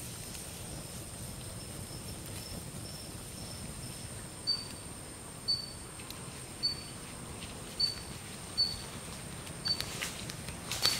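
Forest ambience with a thin, steady high-pitched tone and a short high chirp repeated about once a second, growing louder from about four seconds in. Near the end a wood fire crackles with a few sharp snaps.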